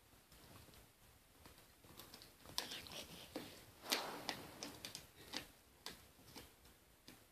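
A dog gnawing on a chew bone: irregular clicks and crunches of teeth on the bone, busiest in the middle, with the loudest crunch about four seconds in.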